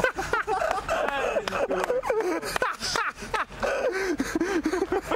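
Indistinct chatter of several people talking over one another.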